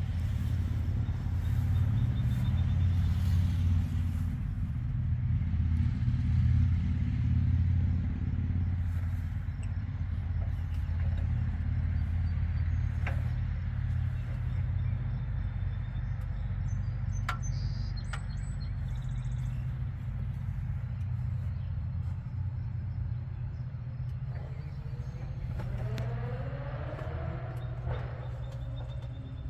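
The 1976 Ford F-250's V8 engine idling steadily, a low even hum, heard over the open engine bay. A few faint clicks and some short rising tones near the end.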